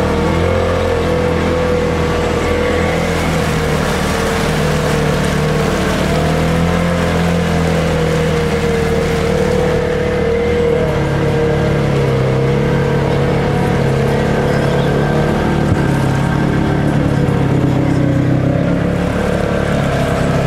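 Side-by-side UTV engine droning steadily as the machine drives through deep water, with water washing around the vehicle; the engine pitch shifts a little partway through.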